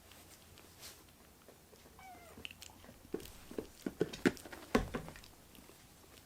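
A kitten gives one short meow that falls in pitch, about two seconds in. A quick run of sharp taps and knocks follows over the next two seconds, the loudest near the end.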